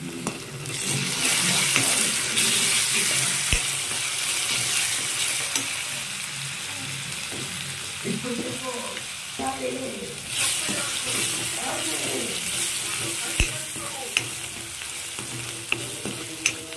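Chopped onions, green chillies and curry leaves sizzling in hot oil in a pan as they are stirred with a spatula, with a few sharp knocks of the spatula on the pan. The sizzle gets louder about a second in and again about ten seconds in.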